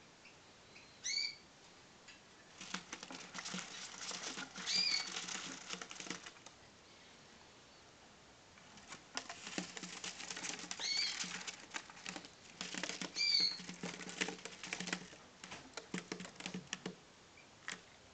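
Texas clearbody crested budgerigars scrabbling and fluttering in a paper-lined wooden box, giving dense stretches of scratchy patter, with four short chirps.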